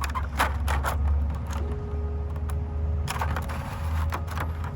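Crinkling and clicking of plastic packaging as die-cast toy cars are handled, in several short clusters, over a steady low rumble.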